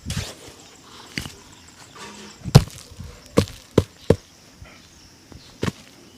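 Sharp knocks and taps from shoe-shine work, about six, spread unevenly, with faint rubbing between them. The loudest comes about two and a half seconds in, followed by a quick run of three.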